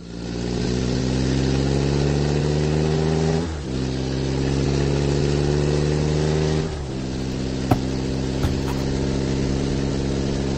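Race car engine sound effect accelerating away. Its pitch climbs slowly, drops back at shifts about 3.5 and 7 seconds in, then holds steady, with two short clicks near the end.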